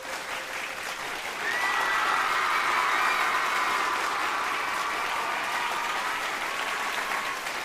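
Audience applause. It starts as a synth tone cuts off, swells about a second in, and then keeps on steadily.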